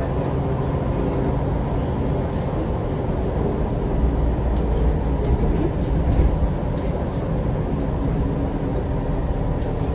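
Interior running noise of a MAN Lion's City G articulated diesel bus, heard from inside the passenger cabin: a steady low engine and drivetrain rumble, heavier for a couple of seconds in the middle, with faint rattling clicks from the fittings.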